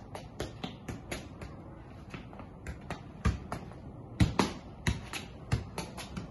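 Football being juggled: dull thuds of the ball striking foot, thigh and chest, several in the second half about two-thirds of a second to a second apart, over background music with a quick ticking beat.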